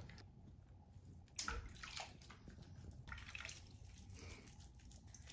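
Faint water sloshing and splashing in a sink as a kitten is bathed, with a few short splashes, the loudest about a second and a half in.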